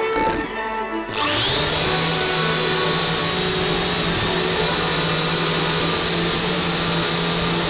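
Small quadcopter drone's electric motors and propellers whining; after a brief dip the whine rises sharply about a second in as the motors spin up, then holds a steady hover pitch.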